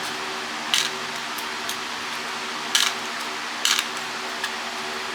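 A few short, sharp clicks and scrapes of metal parts of a satellite LNB being handled during disassembly, about three over a few seconds, over a steady background hum of a fan or similar machine.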